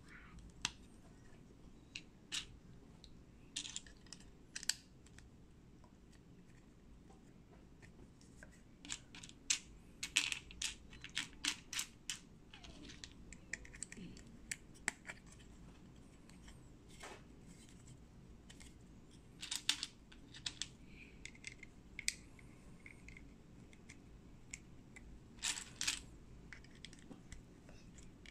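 Small Lego-compatible Sembo Block plastic bricks clicking and snapping as they are pressed together and handled. The clicks are sharp and irregular, some single and some in quick runs of several.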